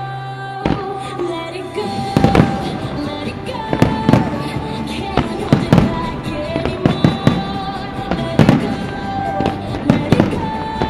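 Fireworks shells launching and bursting in a rapid, irregular series of bangs, over music playing throughout.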